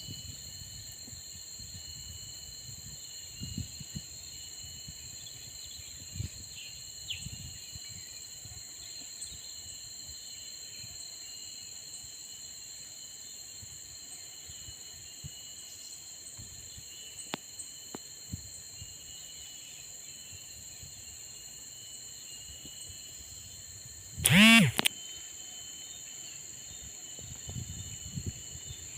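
Steady high-pitched insect drone with a few soft knocks and rustles underneath. About 24 seconds in comes one short, loud, pitched call whose pitch bends.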